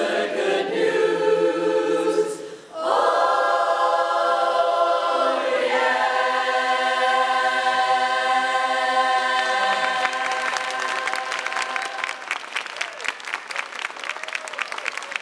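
Women's a cappella barbershop chorus singing the closing phrases, with a short break about two and a half seconds in, then a long held final chord. Applause starts around ten seconds in and takes over as the chord fades.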